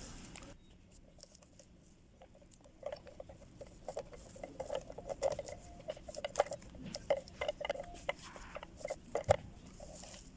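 Quick irregular clicks and light taps of small plastic and metal parts being handled and fitted, starting about three seconds in, as a replacement fuel pump is assembled into its housing.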